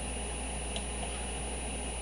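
Steady background hiss and low hum with a thin high-pitched whine: room tone, with one faint tick about three-quarters of a second in.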